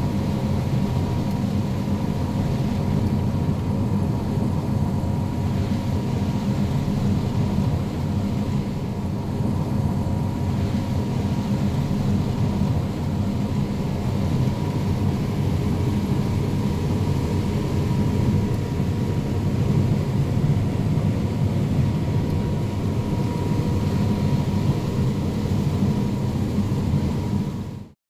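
Combine harvester running steadily while harvesting corn: a constant low machinery drone with a thin steady whine above it.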